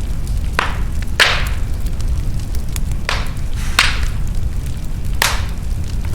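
Wood fire burning in a fireplace with a steady low rumble of flames, broken by five sharp crackling pops and many fainter ticks.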